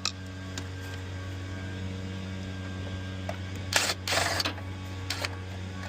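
Hand tools and washer parts being handled: a few light clicks and two short scraping bursts near the middle, over a steady low hum.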